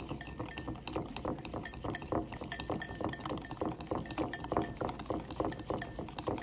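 Metal wire whisk beating a liquid oil-and-lemon marinade in a ceramic bowl, its wires clinking against the bowl in a rapid, steady rhythm.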